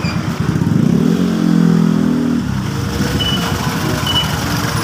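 Street traffic: motor vehicle engines running close by, one louder engine rising in pitch about a second in and then holding. From about three seconds in, a short high beep repeats, like a vehicle's reversing alarm.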